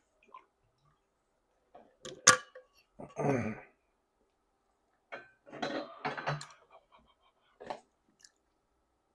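Close-up eating of jajangmyeon noodles: a sharp click, then wet slurping and chewing in short bursts, the longest cluster in the second half.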